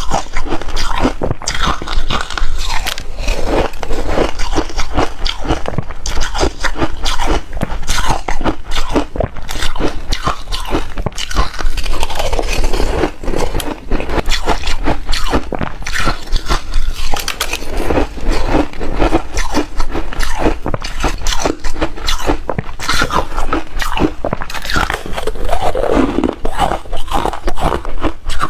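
Teeth biting and chewing reshaved refrigerator ice, a dense run of crisp crunches without pause.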